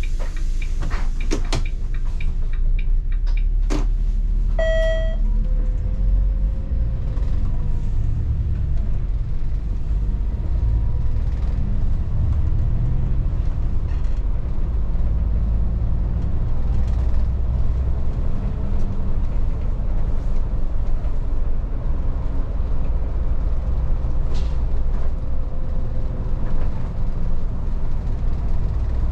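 Volvo 8900 city bus heard from inside: a few sharp clicks in the first seconds and a short electronic beep about five seconds in, then the engine and road noise as a steady low rumble while the bus drives on.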